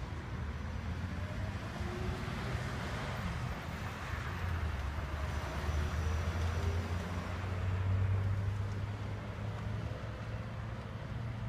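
Diesel locomotive engine running as a low, steady drone with a wash of rolling noise, swelling a little about eight seconds in.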